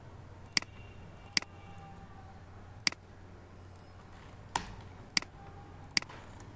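Computer mouse button clicked six times at uneven intervals, over a faint steady hum.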